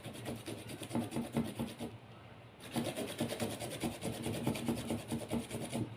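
Peeled ginger root rubbed hard against a hand grater in quick, repeated rasping strokes, with a brief pause about two seconds in.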